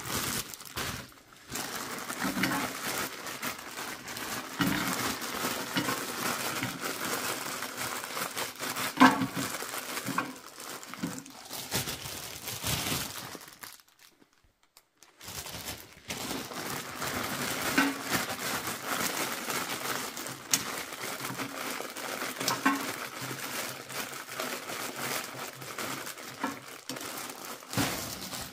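Plastic food bags crinkling as they are torn open and handled, with scattered clicks as potato wedges and chips are tipped into a plastic air fryer basket. The crinkling stops for a moment a little before halfway, then carries on.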